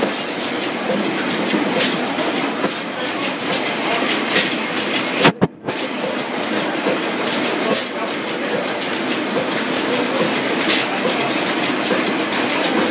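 Crossley Brothers stationary gas engine running, a steady mechanical clatter with sharp knocks every second or so. The sound cuts out briefly about five seconds in.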